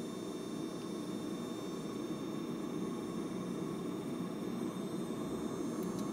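Water boiling inside a Kohler K9 steam generator's tank: a steady low rumble that grows slowly louder as the unit comes up to steam after its repair.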